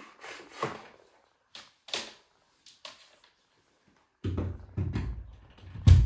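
Scattered light clicks and knocks of a canister vacuum cleaner's cord and hose being handled, then a run of low thuds in the last two seconds, the loudest near the end.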